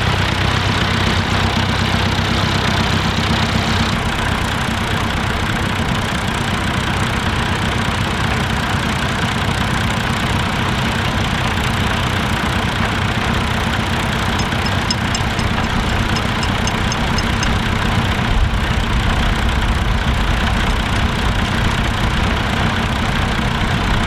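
Vintage Nuffield tractor engines running steadily under load as the tractors pull ploughs through stubble, the low engine note growing fuller about two-thirds of the way through as one tractor draws near.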